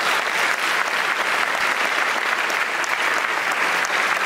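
Audience applauding steadily: many hands clapping at once in a dense, even patter.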